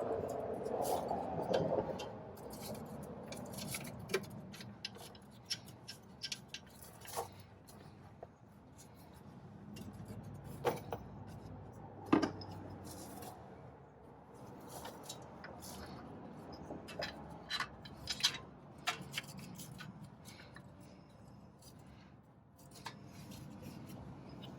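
Irregular metallic clinks, clicks and scrapes from hand tools and wheel hub parts being handled while a new wheel hub assembly is fitted, with the loudest clank about twelve seconds in.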